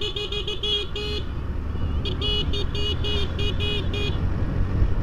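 Electronic vehicle horn beeping in two rapid strings of short beeps, about seven a second, the first just after the start and the second about two seconds in, over the steady rumble of a motorcycle's engine and wind on the helmet microphone while riding.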